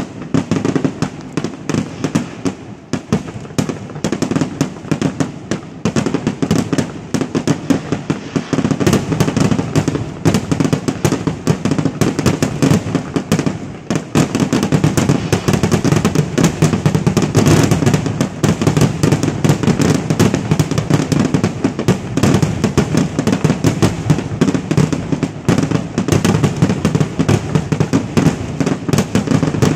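Aerial fireworks display: shells bursting in rapid, near-continuous succession, a dense run of overlapping bangs. It grows thicker and louder about halfway through.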